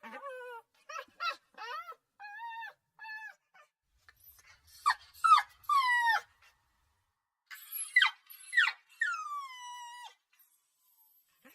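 Puppy whimpering and crying: a run of short high whines in the first few seconds, then louder yelping cries about five seconds in, and long falling whines near the end.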